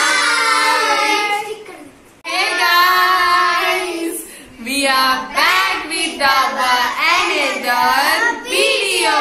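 Children's and a young woman's voices calling out and singing together in high, drawn-out tones, with a short break about two seconds in.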